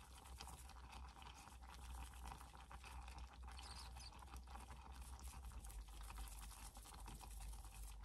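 Very faint crackling and light pattering from the pan of pasta sauce over a low steady hum, the stove already turned off.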